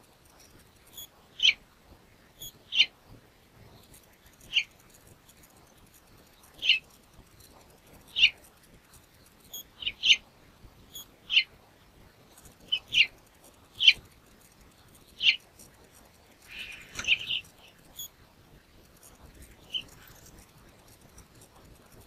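House finches giving short, quick falling chirps, one every second or two, with a brief rougher burst of calls about three-quarters of the way through.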